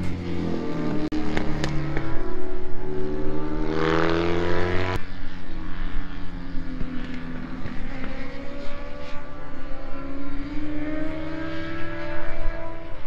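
Racing motorcycle engines running, one climbing steadily in pitch as it accelerates until the sound changes abruptly about five seconds in. A second engine note climbs again near the end.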